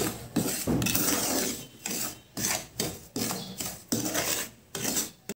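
Wooden spatula stirring semolina as it dry-roasts in ghee in a frying pan: repeated gritty scraping strokes of the grains against the pan, about two a second.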